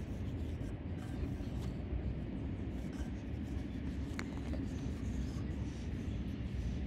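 Paint marker rubbing and scratching across a hard plastic surface in short strokes as a tag is written, over a steady low rumble.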